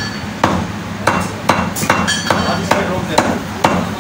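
Butcher's meat cleaver chopping through meat and bone, a steady run of sharp chops about two a second, some with a short metallic ring.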